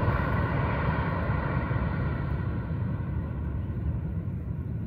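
Jet airliner on landing approach passing low overhead: a steady low rumble of its engines with a whine on top that fades as it moves away.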